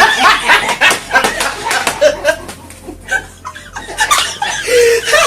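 People laughing and chuckling in short breathy bursts, mixed with a few unclear words, quieter for a moment in the middle.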